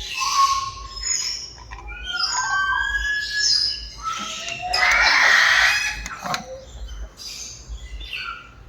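Amazon parrot calling: a string of short whistles and gliding chirps, with a loud, harsh squawk lasting about a second and a half midway.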